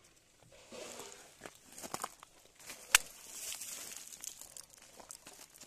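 Lumps of coal handled on a coal heap: gritty crunching and small clicks of coal pieces, with one sharp clack about three seconds in.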